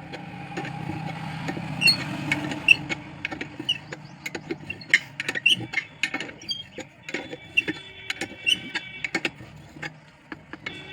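Irregular sharp clicks and clinks of small metal parts and tools being handled, over a low hum in the first few seconds.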